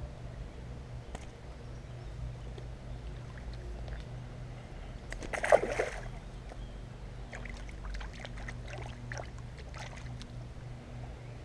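A fish splashes into shallow river water as it is released, one loud splash about halfway through, followed by lighter splashes of hands in the water.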